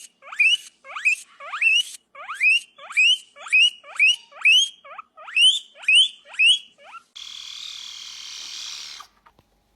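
An animal calling over and over in short, sharply rising squeaks, about two a second, followed near the end by about two seconds of hissing.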